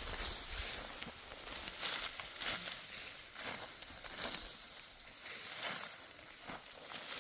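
Dry wheat stalks rustling and crunching as they are cut and gathered by hand, in repeated crisp swishes about once or twice a second.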